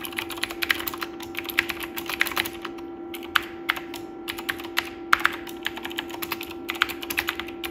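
Typing on the built-in keyboard of a Dolch PAC 60 486 luggable computer: keys clicking in quick bursts with short pauses, over a steady hum.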